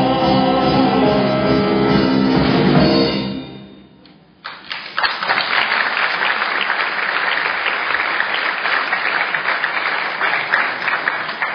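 Live stage music ends on a held final chord that fades out about three and a half seconds in. The audience then breaks into steady applause about a second later.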